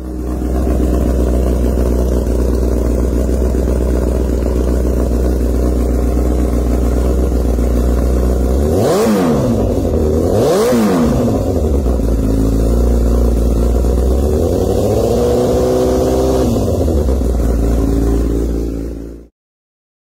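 Honda CBR1000RR inline-four running through a Toce dual-tip exhaust: idling, then two quick throttle blips about halfway through, then a longer rev held for a second or two before it drops back to idle. The sound cuts off shortly before the end.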